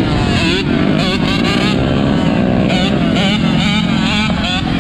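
Several four-wheeler (ATV) engines running and revving, their pitch rising and falling, over a steady low rumble of more engines.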